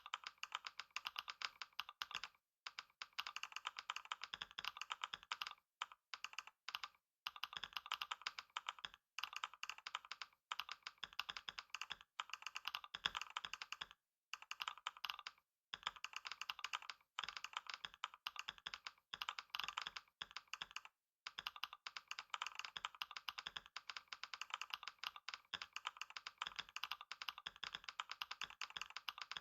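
Fast, continuous typing on a computer keyboard during a speed-typing test: a dense stream of keystroke clicks broken by a few brief pauses.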